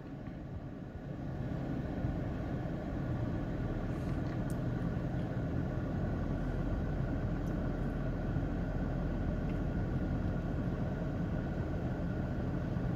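Steady low rumble of a car engine idling, a little louder from about a second in.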